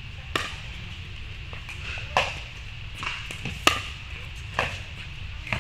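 Pickleball rally: paddles striking a plastic pickleball in sharp pops about once a second, six in all, the loudest about halfway through, with a few fainter ticks in between.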